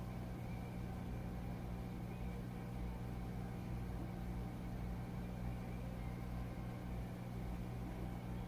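Steady low electrical hum over a constant hiss, unchanging throughout.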